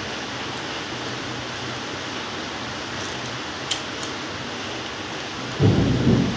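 Steady rain hissing. A loud low rumble starts suddenly near the end.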